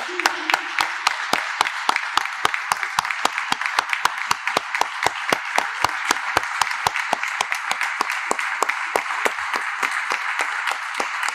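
Applause from a crowd, held steadily, with one close pair of hands clapping sharply about four times a second above the rest.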